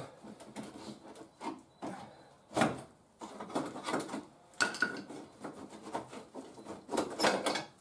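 Irregular scraping, rubbing and knocking of hands and tools working at the car's plastic front bumper and fender to free it, with a few sharper knocks, the loudest near the end.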